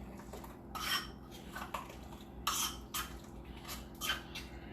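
A spoon scraping and clinking against a bowl in three or four short, separate strokes, as in stirring a thick yogurt sauce.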